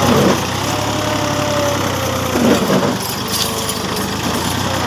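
Massey Ferguson tractor's diesel engine running steadily under way.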